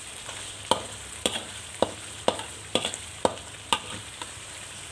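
Metal spatula scraping and knocking against a wok about twice a second, stirring thick chili paste that fries with a steady sizzle.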